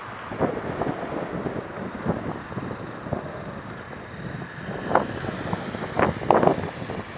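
Wind buffeting the microphone over passing road traffic, with scattered clicks and a few sharper knocks about five and six seconds in.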